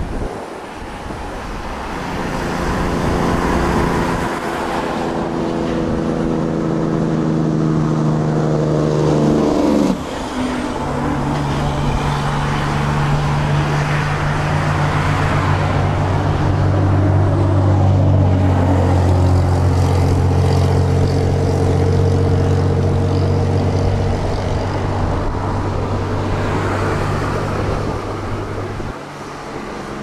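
Motor vehicle engine running loudly over a rushing noise. Its pitch rises, then drops with what sounds like a gear change about ten seconds in, and it holds a steady lower note until near the end.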